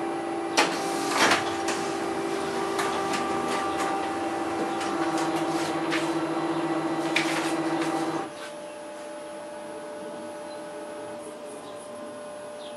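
Xerox Phaser 6250 colour laser printer running a print job: a steady motor hum with several sharp clicks of the paper-feed mechanism in the first couple of seconds. The drives stop about eight seconds in, leaving a quieter hum.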